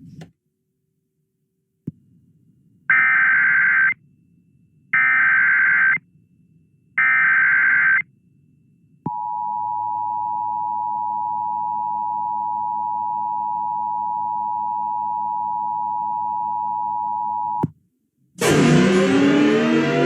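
Emergency Alert System broadcast for an Amber Alert: three one-second bursts of the buzzing SAME header data tones with a second's gap between them, then the steady two-tone EAS attention signal held for about eight and a half seconds and cut off sharply. Music starts loudly near the end.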